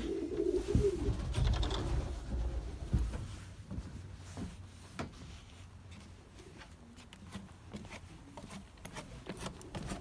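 Racing pigeons cooing in the loft for the first two or three seconds, then quieter, with scattered light clicks and footsteps on wooden stairs.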